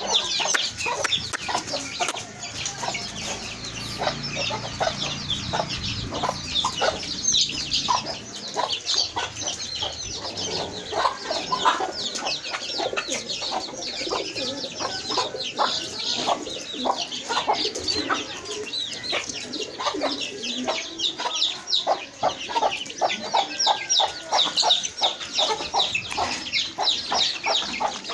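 A flock of chickens calling: a dense, unbroken chorus of chicks peeping, with hens clucking beneath it.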